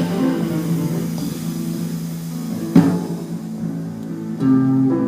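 Live band playing an instrumental passage: sustained electric guitar notes with light drums, one sharp strummed or struck accent near the middle and a fuller chord coming in near the end.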